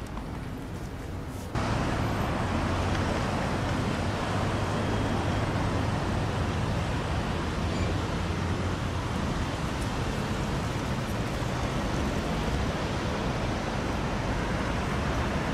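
City street traffic noise: a steady rushing hum of passing road traffic, which gets suddenly louder about a second and a half in.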